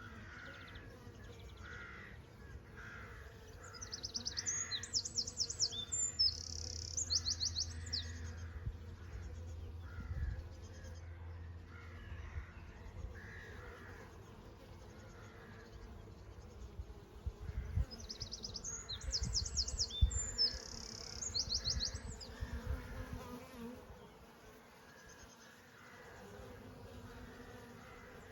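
Honey bees buzzing steadily with a low hum, while a bird sings two bursts of rapid, high, trilled phrases, about four seconds in and again near twenty seconds.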